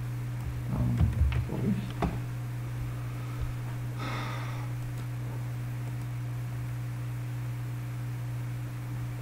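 Steady low electrical hum under the recording, with a few brief clicks and low rustles about a second in and a short breathy hiss around four seconds in.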